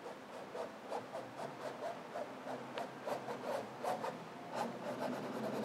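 Paintbrush scrubbing acrylic paint in short, repeated rubbing strokes, about three a second.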